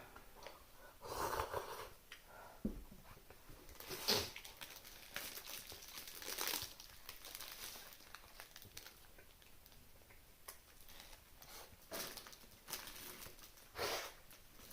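Irregular rustling and crinkling handling noises, in short bursts with quieter gaps.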